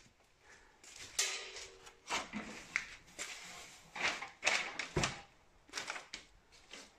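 Irregular knocks, clicks and scrapes of hands handling the plastic and metal casing of a wide-format scanner, with the sharpest knock about five seconds in.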